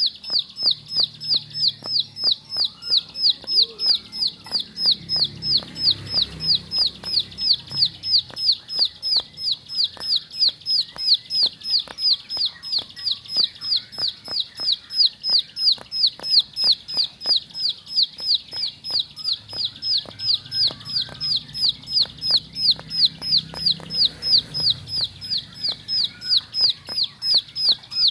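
Ciblek sawah, a small prinia, calling non-stop in its rapid 'ngebren' style: an even run of short, high, falling notes, about three a second, with no pause.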